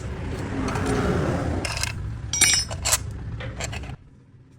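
Motorcycle engine running, with several sharp metallic clinks over it; the engine cuts off abruptly about four seconds in.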